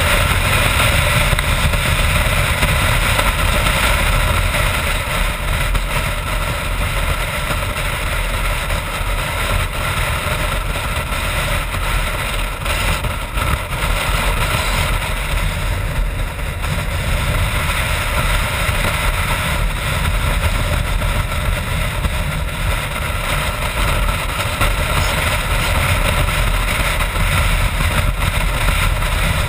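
BMW F650GS Dakar's single-cylinder engine running steadily at road speed under heavy wind rush on the camera microphone.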